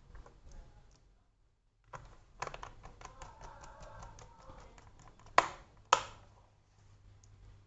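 Small screwdriver driving screws into a laptop's plastic bottom case: a run of light ticks and scraping, then two sharp clicks half a second apart.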